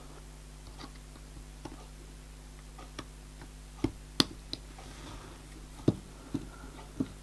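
Small, irregular metallic clicks and taps from tweezers and a small screwdriver against tiny 12BA screws and a brass axle box cover as the screws are set and driven in. The sharpest click comes a little after four seconds in, over a low steady hum.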